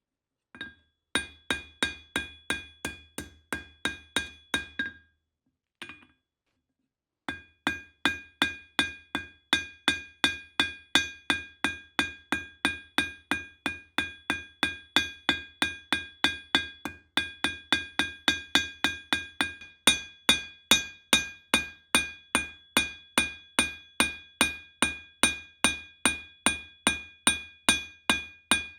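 Hand hammer striking hot steel on an anvil while forging a knife. The blows come in a steady rhythm of about three a second, each with a bright ringing tone from the anvil. The hammering pauses briefly about five seconds in, with one lone strike, then resumes and carries on.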